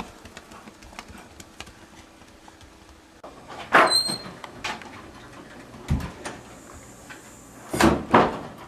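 A few scattered household knocks and thumps, with a brief high squeak about four seconds in and two louder thumps near the end.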